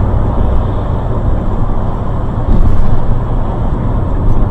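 Steady low rumble of a moving car heard from inside, as picked up by a dashcam: engine and road noise, getting a little louder a little past halfway.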